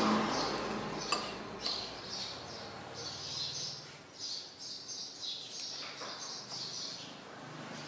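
Small birds chirping over and over, with an occasional clink of a metal spoon against a ceramic soup bowl. A rushing noise fades away over the first two seconds.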